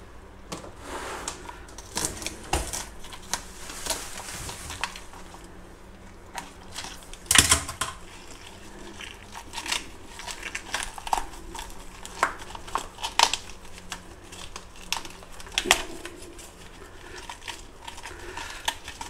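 Kitchen scissors snipping through a fish's spines and skin while gloved hands tear and handle the fish in a sink: scattered clicks, crunches and rustles, with one louder knock about seven seconds in.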